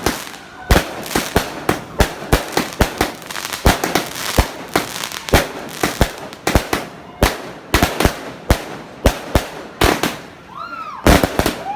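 Fireworks going off in a rapid, irregular string of sharp bangs, several a second. Near the end there is a brief high tone that rises and falls.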